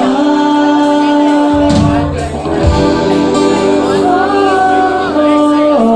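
A live rock band playing a song: acoustic and electric guitars and drums under a male lead vocal holding long notes. Low bass notes come in about a second and a half in.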